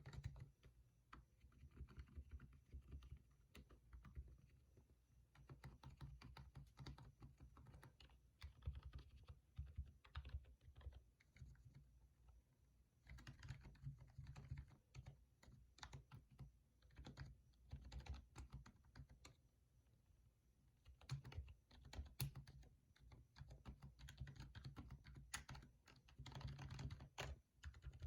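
Quiet typing on a Rii membrane keyboard whose keycaps are stuffed with tissue paper and lubricated with lotion to soften the keystrokes. Soft key clicks come in uneven runs, with short pauses between them.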